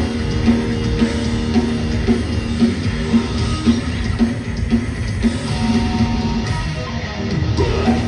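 Hardcore punk band playing live at full volume: distorted electric guitars, bass and drum kit, with the drums keeping a steady beat of about two hits a second.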